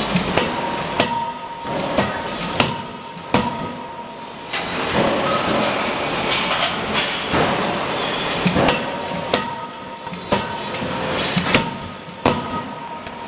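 CNC closed-die forging hammer striking the workpiece in its dies: about a dozen sharp, loud blows at uneven intervals over a steady hiss of machine noise.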